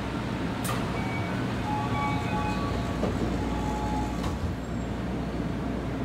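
Door chime of a Toei Oedo Line 12-000 series subway car, a short run of tones, as the doors close. This is the Keio-style chime the refurbished cars play on closing. The doors shut with a knock about four seconds in, over the steady hum of the stopped train.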